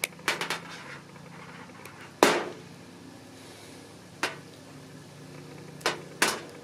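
Wire cutters and a USB cable handled on a plastic table: a few sharp clicks and taps, the loudest about two seconds in.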